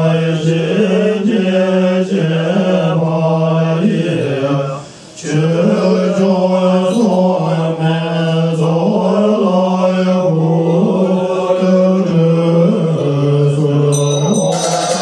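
Tibetan Buddhist monks chanting in unison on one steady low pitch, with a short break for breath about five seconds in. Near the end, instrumental music comes in over the chant.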